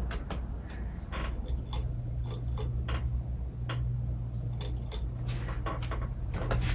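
Hunter Original 52-inch ceiling fan with an oil-bath motor, running: a steady low motor hum that comes up about a second and a half in, with irregular ticks and clicks over it.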